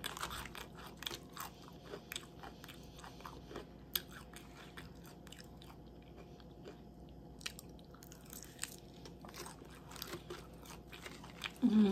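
A person chewing a mouthful of salad, with many small crisp crunches. A brief vocal sound comes near the end.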